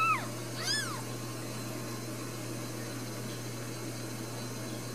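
Two short, high-pitched mews from a newborn Ragdoll kitten in the first second, each rising and then falling in pitch, followed by a steady low hum.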